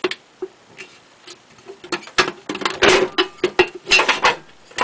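Sheet-metal Eaton outdoor electrical box being handled, its hinged cover unlatched and swung open: a few light clicks, then a dense run of metallic clicks and rattles over the last couple of seconds.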